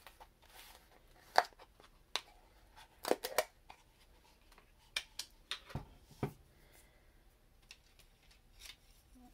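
Scattered light clicks and taps of craft supplies being handled on a work table, with a couple of duller thumps about six seconds in.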